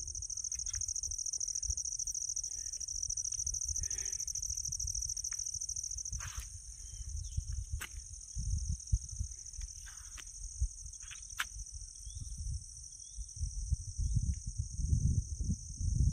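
A steady high-pitched insect drone, with wind buffeting the microphone in gusts that get stronger near the end. A few short chirps come through now and then.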